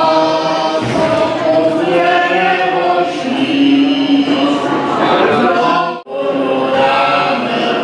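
A group of voices chanting in held, drawn-out notes, a mock funeral chant for the burial of Masopust; the sound breaks off for a moment about six seconds in.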